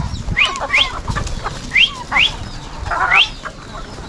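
Farmyard birds calling: short, high chirps that rise in pitch, mostly in quick pairs, repeating about every second and a half, with a lower, wavering call about three seconds in. A low rumble runs underneath.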